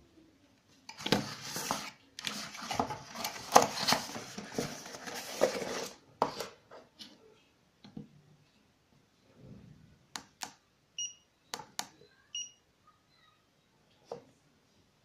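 Rustling and scraping as things are handled and moved on a wooden table for the first few seconds. Later the laser distance meter's buttons click several times and the meter gives two short beeps about a second apart as it takes measurements.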